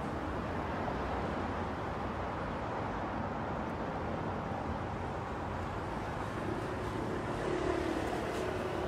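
Steady road noise of a car driving at speed on a dual carriageway, heard from inside the cabin: tyres on asphalt and engine. A faint droning tone joins in near the end.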